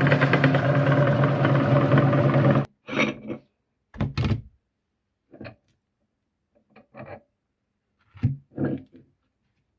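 Electric meat grinder running steadily with a low motor hum while grinding Kurkure corn puffs, cutting off abruptly about a third of the way in. It is followed by about seven short, separate thunks and knocks with silence between them.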